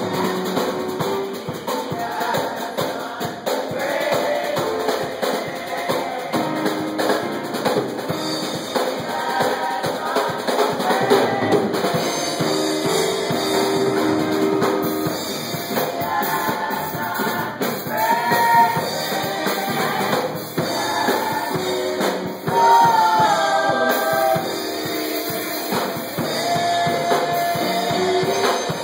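Gospel praise song sung by a small group of women's voices at microphones, with drum kit and band accompanying. The singers hold long, wavering notes over a steady beat.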